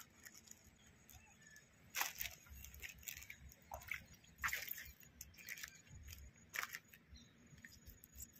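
Faint, scattered small splashes and gritty rustles as a hand dips into shallow river water and works grain bait from a cloth sack into a groundbait ball. The sound comes as a few short crackles spread over several seconds, with low handling bumps underneath.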